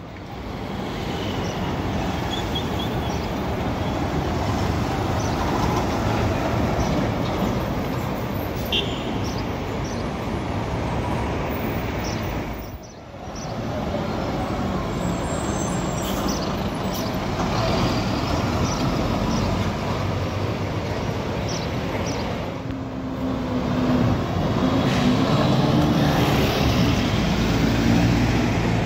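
City street traffic noise. Near the end a city bus's engine running close by grows louder as the bus pulls past.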